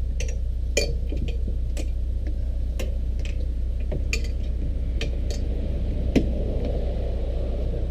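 Scattered sharp clicks and knocks as a man climbs a metal ladder on the back of a motorhome and handles a tow light bar against it, the loudest knock about six seconds in. A steady low hum runs underneath.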